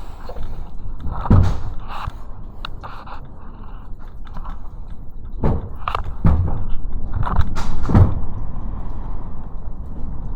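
Typhoon wind rumbling steadily, with a handful of loud thumps and knocks, the heaviest about a second in and around eight seconds in.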